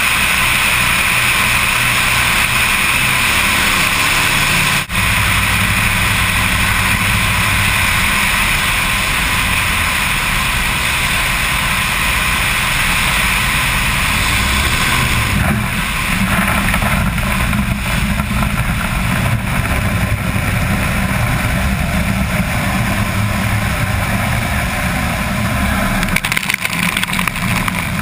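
Aircam amphibian's twin engines running steadily, with wind rushing past a float-mounted camera. Near the end the floats meet the water and spray splashes against them in irregular loud bursts.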